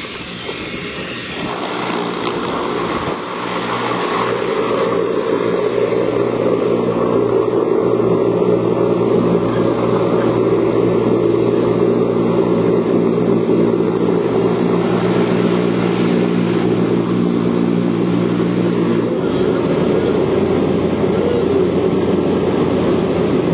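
Propeller aircraft engine running, a steady drone that grows louder over the first few seconds. Near the end it is heard from inside the aircraft's cabin.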